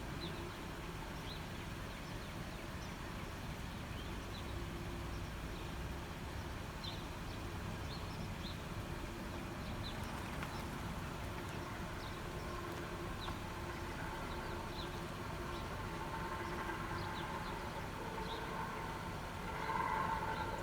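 Unexplained droning noise from the sky: several steady held tones that swell louder near the end. Short high bird chirps come and go over it.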